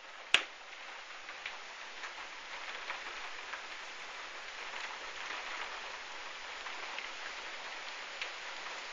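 Heavy storm rain falling: a steady hiss with scattered drop ticks. A single sharp click about a third of a second in is the loudest sound.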